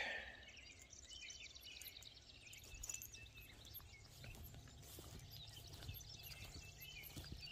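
Quiet outdoor ambience with faint, scattered bird chirps and a low steady hum underneath.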